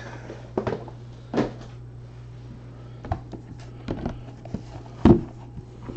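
Sealed cardboard trading-card hobby boxes being handled, stacked and set down on a table: scattered light knocks and scuffs, the loudest about five seconds in.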